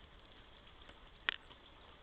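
A single short, sharp tap at the bird feeder a little over a second in, over a steady faint hiss.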